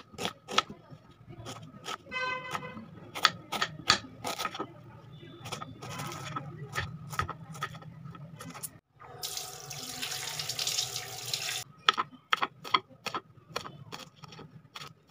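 Kitchen knife chopping a red onion and then coriander leaves on a wooden board: sharp knocks, irregular and at times several a second. About nine seconds in, after a brief break, a steady rushing hiss lasts about three seconds.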